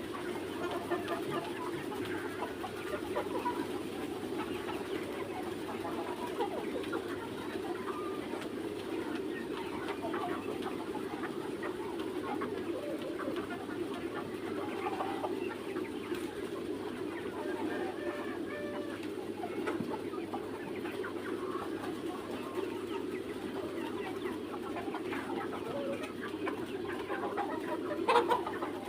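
A flock of young Mía chickens, a Vietnamese breed, clucking and calling continuously, with a brief louder sound about a second before the end.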